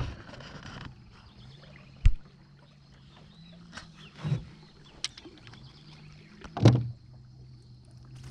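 A few scattered hollow knocks and bumps on an aluminium boat's hull, the loudest about two seconds in and another late on, over a steady low hum.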